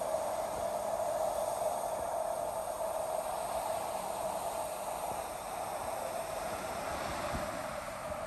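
Steady rush of water from a small waterfall and cascade pouring into a rock-walled pool.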